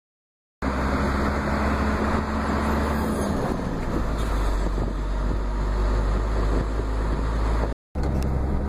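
Steady road and engine noise heard from inside a moving vehicle, with a deep low rumble. It starts abruptly about half a second in and drops out for an instant near the end.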